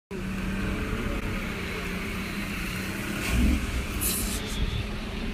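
Speedboat engine droning steadily, heard from inside the passenger cabin, with a heavy thump about three and a half seconds in.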